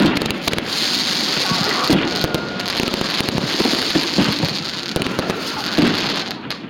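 Fireworks going off: dense crackling from bursting stars and fountains, with several sharper bangs among it.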